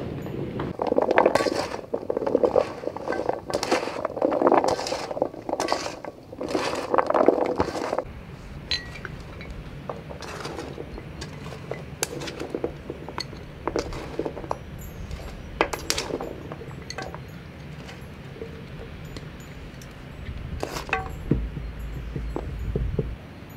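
Hands scooping and mixing chopped raw vegetables (cauliflower, carrot, celery, pepper) on a metal tray: a dense, wet rustle full of small clicks. After about eight seconds this gives way to scattered light clinks of glass jars as the vegetable pieces are dropped and packed into them.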